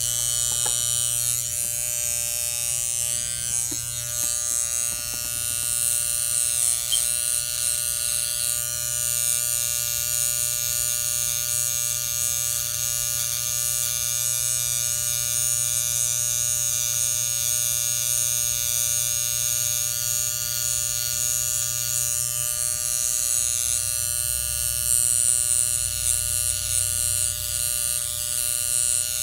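Electric hair clippers running with a steady buzz while cutting hair along the temple and hairline.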